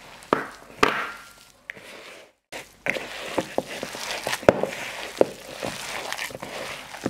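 A plastic-gloved hand kneading and squeezing a yellow bean and flour mixture in a bowl: irregular squishing and crunching with sharp little taps, breaking off briefly about two and a half seconds in.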